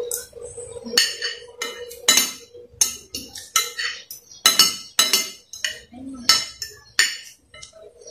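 Metal spoon and fork clinking and scraping against a glass plate while eating rice, a dozen or so sharp clinks scattered unevenly.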